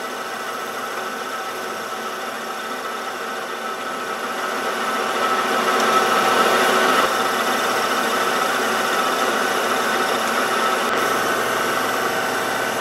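Small hobby metal lathe running under power, its motor and gearing whining steadily while the lathe tool takes a turning cut on the spinning metal workpiece. The sound grows a little louder from about four seconds in as the cut goes on. This is one of the equal passes taken toward the final diameter.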